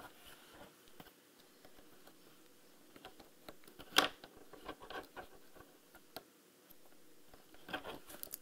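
Faint clicks and scrapes of hands working an opened key fob and its coin-cell battery with a small flathead screwdriver. One sharp click comes about four seconds in, with scattered clicks after it and a quick run of clicks near the end.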